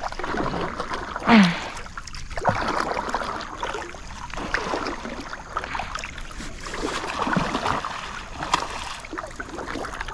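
Water splashing and sloshing around a wooden canoe while a hooked snakehead is fought on a rod and reel. A brief cry from a person comes about a second and a half in.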